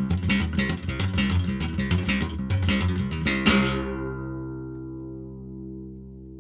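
Guitar music: fast strummed chords, then a final chord struck about three and a half seconds in that rings out and slowly fades.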